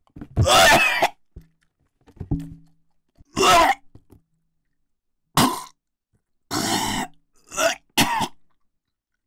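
A man retching and coughing over a metal tray, gagging on a mouthful of hot-chilli bean curd: six harsh, hacking heaves, the first and longest about a second in, the last three close together near the end, with drool spat into the tray.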